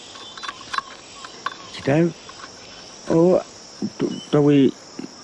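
A machete striking a tree trunk, a few sharp chops in the first second and a half, over a forest background with three loud buzzing insect calls about a second apart.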